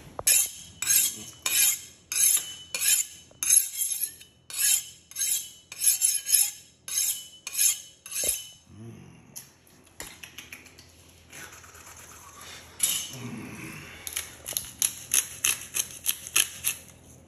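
Kitchen knife being sharpened on a honing steel: a metallic scrape with each stroke, about two a second, for the first eight seconds. After a short pause, a quicker run of similar strokes comes near the end.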